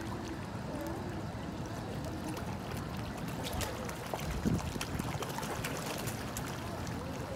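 Water splashing and trickling steadily from an outdoor fountain, with faint voices in the background and a brief low thump midway.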